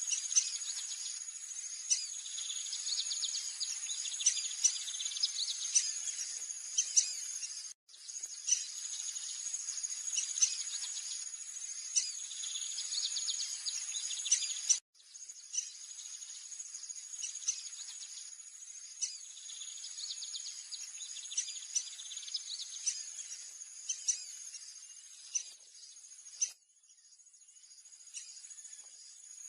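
A steady high insect trill, like crickets, with many short bird chirps and calls over it. The sound cuts off abruptly and restarts a few times, as at edit points.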